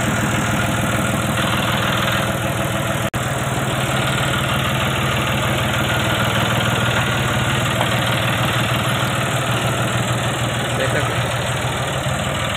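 John Deere 5055E tractor's three-cylinder turbo diesel engine idling steadily. The sound drops out for an instant about three seconds in.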